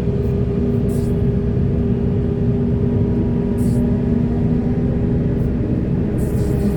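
Heavy diesel earthmoving machinery running steadily under load, with a constant deep drone and a steady hum over it.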